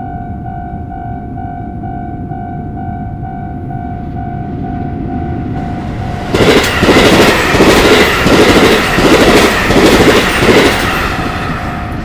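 Level-crossing warning bell ringing in a fast, steady repeat. About six seconds in, a train passes and its wheels clatter in loud, rhythmic surges for about four and a half seconds, drowning out the bell, which is heard again near the end.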